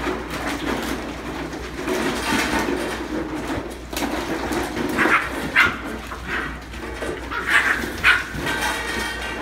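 Wheaten Terrier and Welsh Terrier puppies playing, with short high yips and barks; the sharpest yips come in a cluster from about five to eight seconds in.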